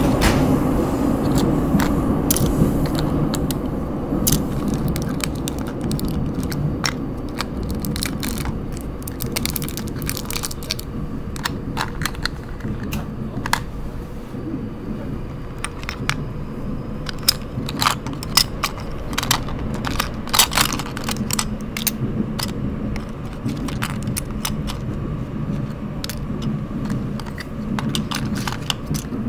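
Small hard plastic miniature toys clicking and clattering as they are picked up and set back in a plastic compartment box, over the steady low rumble of a subway train running.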